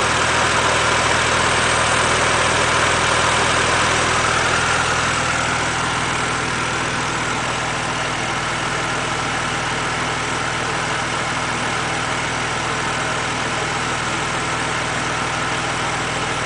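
BMW Z4 3.0si's N52 straight-six idling steadily with a hissing noise over it. The hiss is strongest for the first few seconds and eases off somewhat about five seconds in.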